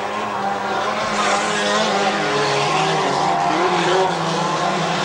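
Several hot rod race cars' engines running hard, their pitches overlapping and wavering up and down as the cars circle the track.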